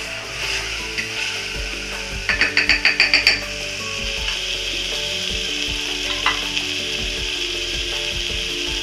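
Onion and tomato masala sizzling steadily in hot oil in a pressure cooker, stirred with a wooden spatula. About two seconds in, a quick run of about nine sharp scrapes or taps lasts about a second.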